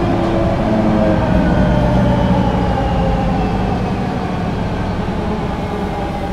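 Solaris Urbino III 12 city bus with a Voith automatic gearbox, heard on board while driving. The whine of the engine and driveline falls steadily in pitch over a low rumble, and the sound eases slightly as the bus slows.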